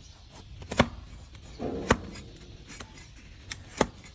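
A flat hoof knife being pushed down through a donkey's hoof horn, paring off slices. Each stroke gives a sharp crack, three loud ones about a second apart with fainter ones between.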